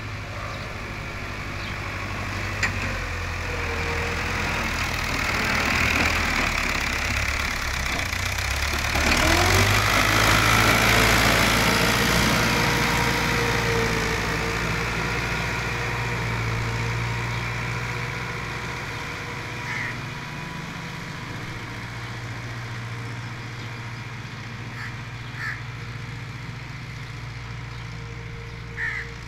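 640 tractor's diesel engine working under load as it drags a rear leveling blade through sandy soil, growing louder to a peak about ten seconds in as it comes close, then fading as it pulls away. A few short crow caws sound in the second half.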